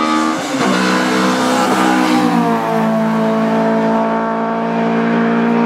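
Race car engine running hard under load as the car climbs through a bend. Its pitch steps down about half a second in and again around two and a half seconds, then holds steady.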